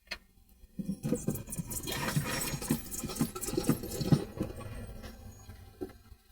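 A click, then water being poured into a container in irregular gurgling glugs for about three seconds before it trails off.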